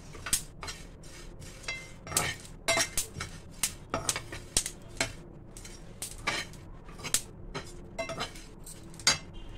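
Metal spoon scraping and knocking against a non-stick pan as muskmelon seeds are stirred while dry-roasting. The strokes come in a quick, irregular run of about two to three a second.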